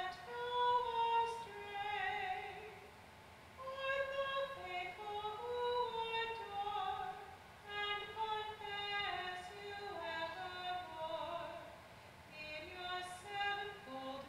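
A woman cantor singing solo with vibrato, in phrases broken by short pauses.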